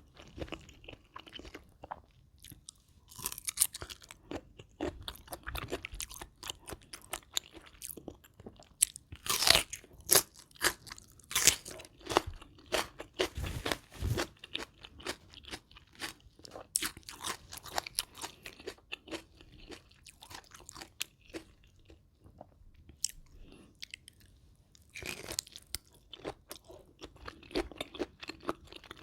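Close-miked chewing and crunching of a spicy rice-noodle salad with raw shrimp and fresh raw vegetables: irregular crisp crunches, loudest about a third of the way in, with a quieter stretch of soft chewing shortly before the end.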